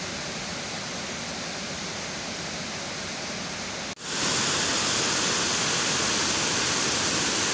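Steady rushing roar of river water spilling over a concrete weir. Nearly four seconds in it cuts out for a moment, then comes back louder and brighter.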